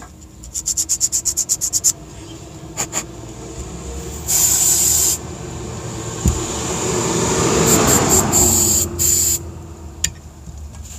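Aerosol cleaner spray hissing in a burst about four seconds in, then in shorter bursts around eight to nine seconds, as dirty electrical contacts are cleaned. Quick scratchy scrubbing strokes come before it, about ten a second, near the start.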